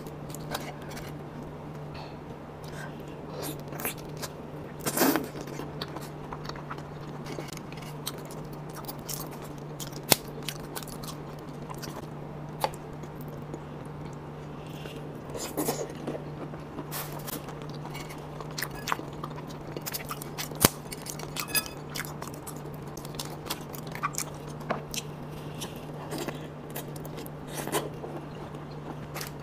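Langoustine shells cracking and being peeled by hand, with chewing and biting of the langoustine meat: many scattered sharp clicks and snaps, a few louder ones, over a steady low hum.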